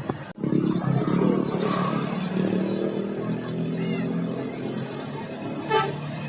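A bus's diesel engine running, with a short loud hiss about six seconds in.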